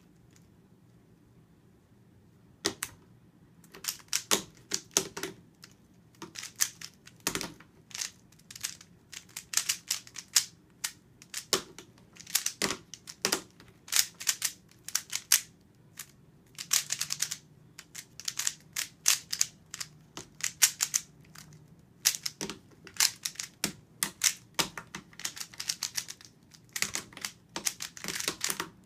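A 3x3 Rubik's-type speedcube being turned one-handed: rapid, irregular plastic clicking and clacking of layer turns in quick clusters with brief pauses between, starting about three seconds in after a quiet pause.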